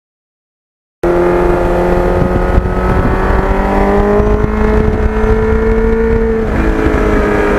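Kawasaki GPX750R's inline-four engine pulling under acceleration, its pitch climbing steadily, then dropping suddenly near the end at a gear change, with wind rumble on the microphone. It starts abruptly about a second in.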